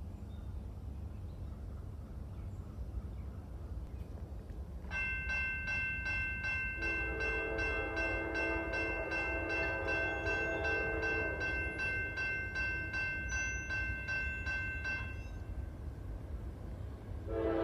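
Railroad crossing bell starting about five seconds in with a fast, even ringing, then stopping about ten seconds later once the crossing gates are fully down. A distant locomotive horn sounds beneath the bell, and a louder horn blast from the approaching Norfolk Southern locomotive begins right at the end.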